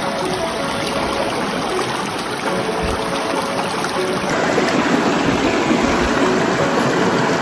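Small rocky brook trout stream babbling and splashing over stones and a little cascade, steady throughout, louder from about four seconds in.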